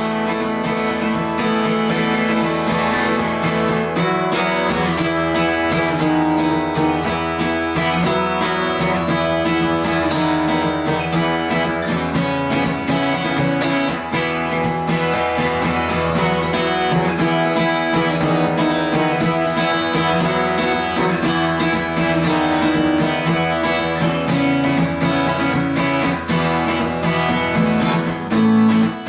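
Acoustic guitar strummed, playing a steady chord pattern with no singing.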